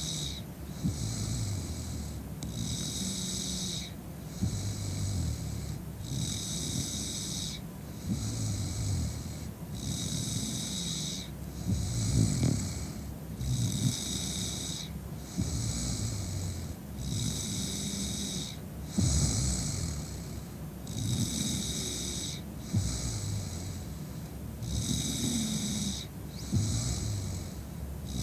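A woman snoring in heavy, drunken sleep: rough, wavering snores that swell every few seconds. Behind them a high hiss pulses on and off about once a second.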